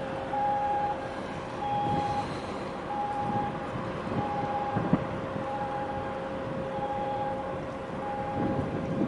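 An electronic warning beeper sounds a short high beep about every second and a quarter, over a steady lower hum and a low rumble.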